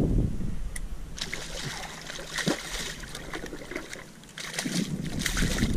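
A hooked redfish thrashing at the surface beside a paddle board, a run of irregular splashes and water sloshing.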